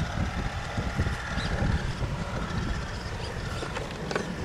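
Electric drive of a Redcat Gen8 Scout II 1/10 scale RC rock crawler, a steady motor and gear whine, as it crawls up onto a pile of wooden planks. A low rumble of wind on the microphone runs underneath it.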